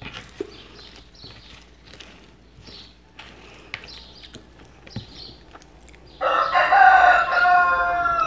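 Soft eating sounds, a plastic spoon scraping a plate and chewing, then about six seconds in a rooster crows loudly for about two seconds, the call dropping at its end.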